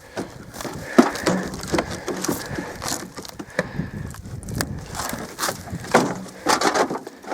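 Old wooden boards and debris being shifted and pulled about: a string of irregular knocks, snaps and cracks, the sharpest about a second in.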